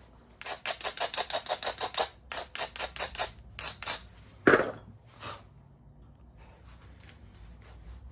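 Flintknapping: quick scraping strokes against the edge of a stone piece, about six a second for three seconds, then one loud sharp strike on the stone and a lighter knock just after.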